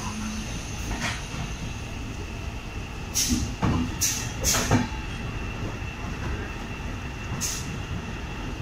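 Passenger train running on the rails: a steady rumble, with three short hissing bursts about three to five seconds in and another near the end.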